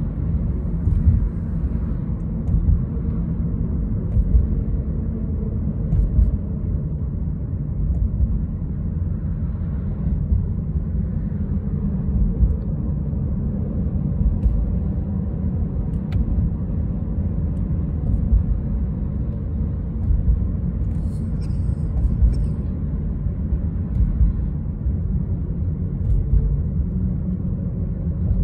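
Road noise heard inside a moving car's cabin: a steady low rumble of tyres and engine at highway speed.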